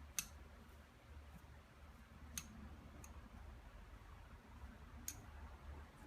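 Four sharp, separate clicks of small hard objects, the first the loudest, over a low steady hum.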